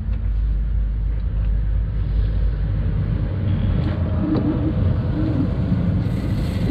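Small electric freshwater pressure pump running steadily, pushing water through its test hoses and building pressure.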